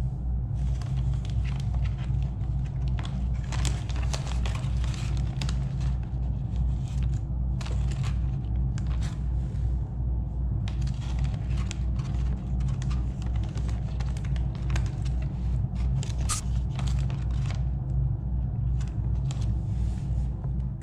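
Thin plastic bag crinkling and crackling irregularly as it is handled, over a steady low hum.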